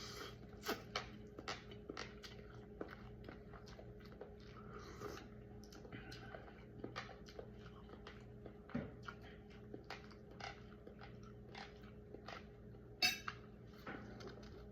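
Close-up chewing and biting of a person eating khao poon noodle soup: many short irregular clicks over a steady low hum, with one sharper click near the end.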